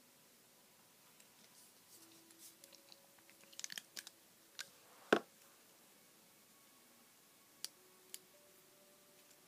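Small clicks, crackles and taps from handling makeup tools and products close to the microphone, with one sharp click about five seconds in and two lighter clicks near the end.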